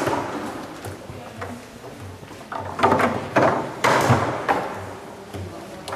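Foosball table in play: irregular sharp knocks and clacks as the ball is struck by the rod-mounted men and rods bang in the table. The knocks are busiest about three to four seconds in.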